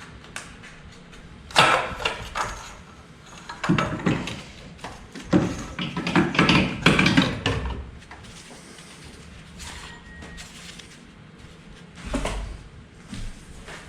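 Razor blade scraping old gasket material off an aluminum engine's thermostat housing mating surface, in a run of irregular rasping strokes over several seconds. After that it goes quieter, with a dull knock near the end.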